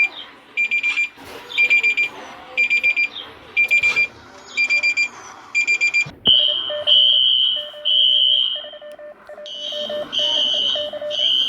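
Electronic emergency-alert alarm tones. First come groups of four or five rapid high beeps, repeating about once a second. Just after six seconds a different alarm takes over: a high tone broken by short gaps, over a lower pulsing beep.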